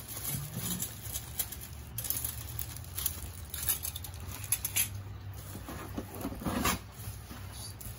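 Plastic packaging crinkling and rustling in the hands, with scattered short crackles and light handling knocks against the cardboard box.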